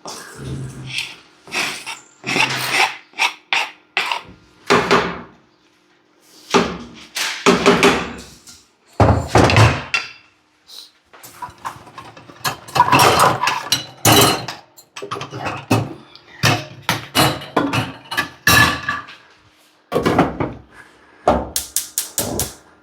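Kitchen clatter: irregular knocks and clunks of cookware and utensils being handled and set down, with short pauses between, over a faint steady hum.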